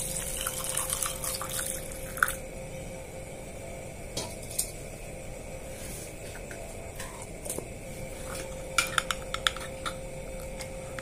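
Hot milk poured from a steel pot into a ceramic mug for about two seconds, ending in a knock, then a few single clicks; near the end a metal spoon clinks quickly against the inside of the mug as it is stirred. A faint steady hum sits underneath.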